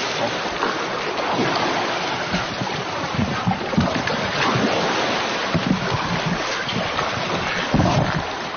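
A swimmer splashing hard through pool water, with a steady wash of churned water and irregular splashes from the strokes.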